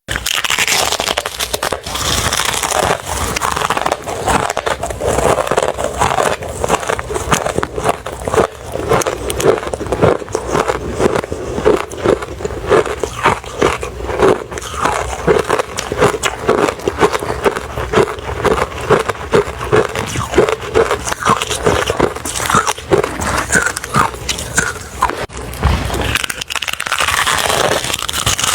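Close-up crunching of refrozen crushed ice being bitten and chewed: a dense run of sharp, brittle crunches, several a second.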